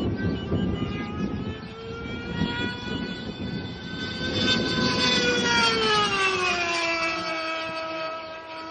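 Bob Violett Viper RC ducted-fan jet's two-stroke engine running at high revs in flight. Its high note is loudest about five or six seconds in, then drops steadily in pitch as the model passes and moves away.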